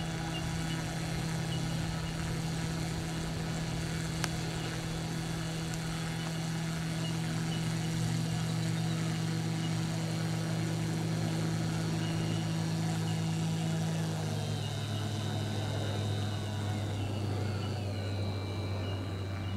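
Radio-controlled Kingfisher amphibian model's motor and propeller running steadily as it taxis on the water; the note drops lower about fourteen seconds in.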